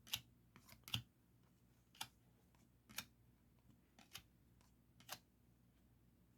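Faint, sharp clicks about once a second, six in all: trading cards being flipped one by one through a stack.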